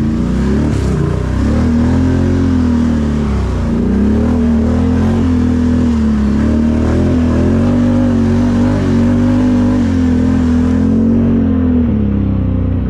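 ATV engine revving under load, its pitch repeatedly rising and falling as the throttle is worked.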